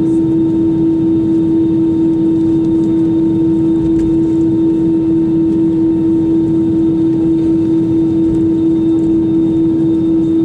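Cabin noise inside an Airbus A320-200: a steady rumble with a strong constant hum, unchanging throughout.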